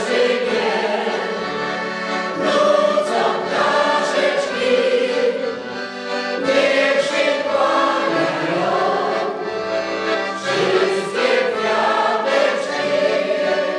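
Choir singing a Polish love song with accordion accompaniment.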